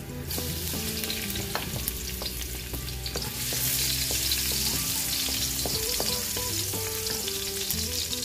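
Minced garlic sizzling in hot cooking oil in a wok as it goes in, the hiss growing louder about three and a half seconds in, while a wooden spatula stirs it with small clicks and scrapes against the pan.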